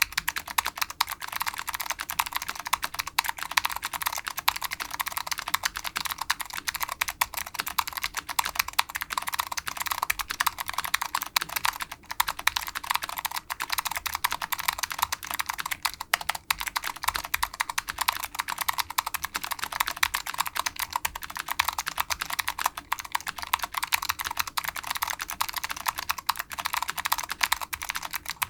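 Steady, fast typing on a custom mechanical keyboard with new-old-stock Alps SKCM Blue switches, which are clicky, mounted on a Delrin (POM) plate in a polycarbonate case. It is a dense, unbroken stream of sharp key clicks.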